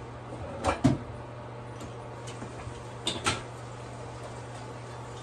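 Light clatter of kitchen things being handled: two pairs of sharp knocks or clinks, about a second in and again about three seconds in, over a steady low hum.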